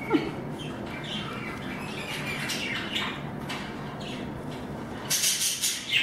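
Pet budgerigars chirping: several birds giving short, high repeated chirps throughout, with a louder burst of rapid chirps about five seconds in.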